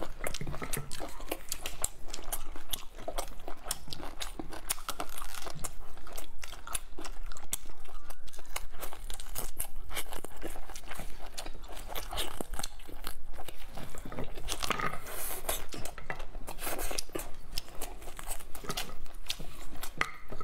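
Close-miked eating: biting into and chewing meat from large ribs and tearing it off the bone, with many sharp crunching clicks throughout.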